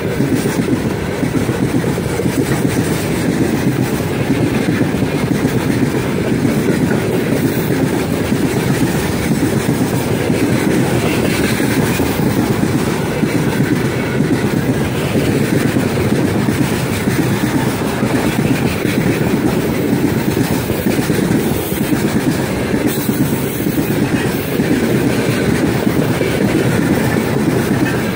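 Open-top gondola wagons of a heavy freight train rolling past close by: steel wheels on the rails making a loud, steady, deep rumble that does not let up.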